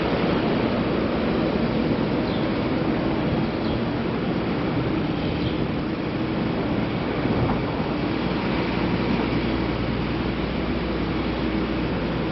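Steady city traffic noise from a busy avenue, an even wash of sound with a faint low hum and no distinct single events.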